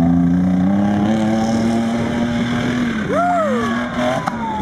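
Pickup truck engine running hard under throttle with a steady drone that rises slightly. About three seconds in, a high yell rises and falls over it, then trails off.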